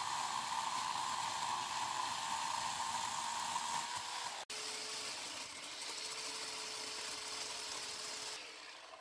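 Corded electric chainsaw running as it cuts into shrub stumps, a steady whine over the chain's hiss. It breaks off abruptly about halfway, then runs again at a lower pitch and dies away near the end.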